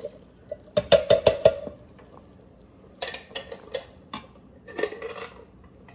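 A metal can of corn clanking several times in quick succession against the rim of a steel cooking pot as the kernels are emptied in, then a few softer scrapes of a wooden spatula stirring the thick coconut-milk mixture.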